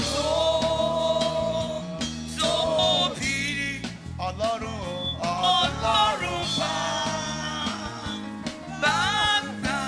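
Live gospel praise-and-worship music: a voice singing over a steady band accompaniment.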